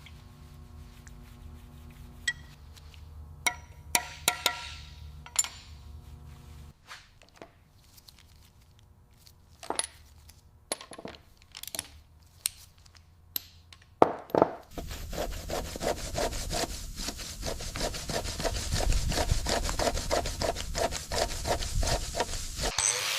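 A steady low hum with scattered clicks and knocks, then, about two-thirds of the way through, a hand tool scraping back and forth in quick rhythmic strokes, several a second, growing louder.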